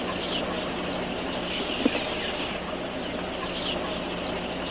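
A large flock of chickens calling all together in a dense, steady chorus, over a steady low hum, with a short knock about two seconds in.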